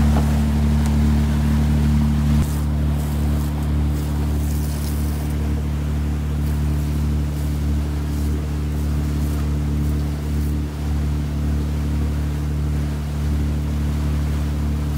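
Boat's engine droning steadily under way, a low hum with a few steady tones, one of which drops out about two and a half seconds in, over the wash of the wake.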